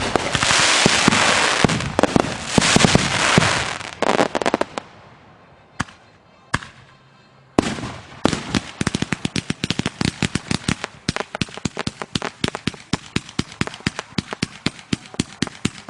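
Backyard fireworks: several seconds of dense crackling with loud bursts, a short lull with a few lone reports, then a rapid string of sharp pops, several a second.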